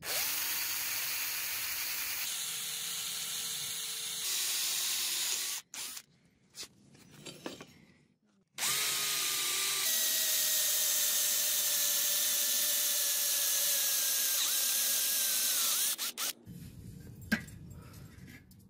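Handheld electric drill boring holes through a steel sword blade: two long runs of steady motor whine with the bit cutting metal, each spinning up at the start, separated by a short pause with a few brief blips. A single click near the end.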